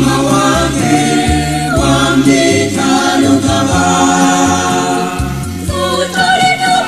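A choir sings a Luganda Christian hymn in harmony over instrumental accompaniment, with a bass line moving under the voices.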